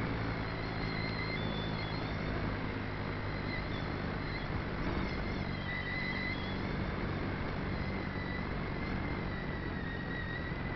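Small model aircraft motor and propeller heard from an onboard camera: a steady high whine that wavers slightly in pitch, over constant wind rush on the microphone.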